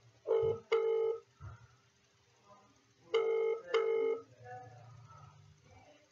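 Ringback tone of an outgoing phone call heard through a mobile phone's speakerphone: a double ring, heard twice about three seconds apart.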